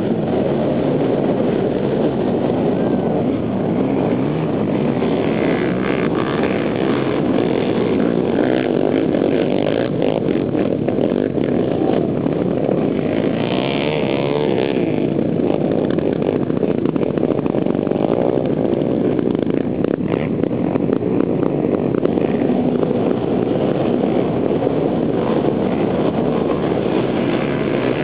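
Many racing ATV engines running together as one dense, loud din, rising sharply right at the start as the pack gets going, then holding steady as quads ride past.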